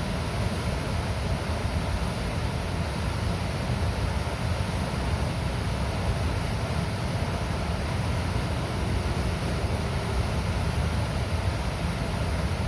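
Water pouring out of a river dam's gates, a steady rushing with a heavy low rumble.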